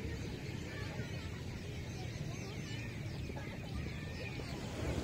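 Ocean surf washing steadily onto the beach, with faint high chirping sounds over it.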